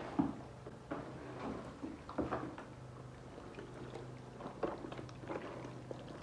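Kitchen handling sounds as seasoning is mixed and rubbed into a raw turkey: irregular knocks, taps and wet rubbing at uneven intervals, over a steady low electrical hum.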